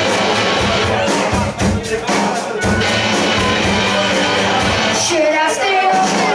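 Live rock band playing: electric guitars, bass and drums with a singer into a microphone. About five seconds in the low end drops away briefly while a wavering vocal line carries on, then the full band comes back.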